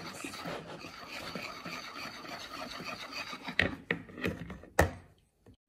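Metal wire whisk beating waffle batter in a plastic bowl, its wires scraping and swishing against the bowl in a quick steady rhythm. About three and a half seconds in the whisking gives way to a few sharp knocks, the last one the loudest, then it goes quiet.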